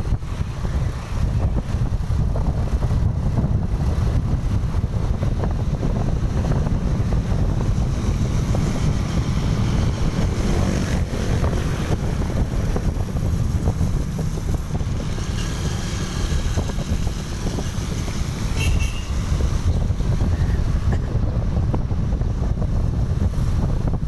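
Steady wind buffeting the microphone on a moving motorcycle, a dense low rumble mixed with road and engine noise.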